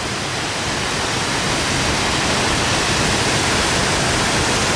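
Rogie Falls waterfall: a steady rush of falling water, growing a little louder over the first couple of seconds.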